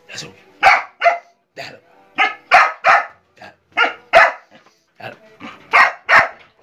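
Husky-type dogs barking: a run of short, sharp barks, about two a second, some loud and some fainter.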